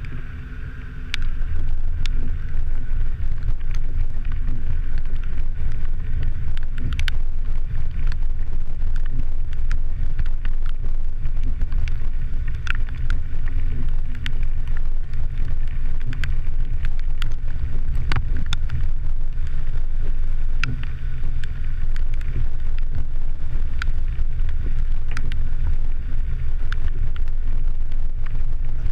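Vehicle driving a rough dirt road, heard from a camera on its hood: a steady heavy rumble of wind and road noise that jumps up about a second in. Sharp clicks and knocks are scattered throughout.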